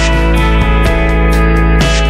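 Background instrumental music with guitar.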